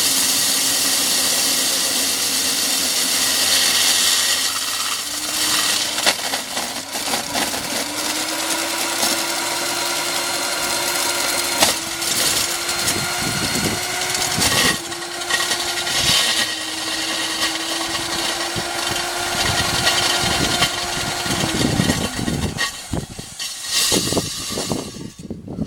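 Power drill boring a hole through a beam, its motor running at a steady pitch with grinding and repeated knocks as the bit works. The motor winds down near the end.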